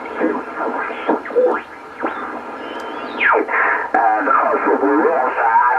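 Geloso G.4/215 shortwave receiver's loudspeaker giving band noise and garbled single-sideband voices, with a steep falling whistle about three seconds in as the receiver is tuned between stations. From about four seconds in a distorted sideband voice comes through more steadily.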